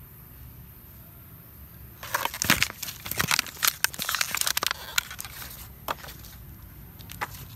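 Crumpled plastic bottle crinkling and crackling as it is grabbed and tugged at. The crinkling starts about two seconds in and lasts about three seconds, followed by a few scattered clicks.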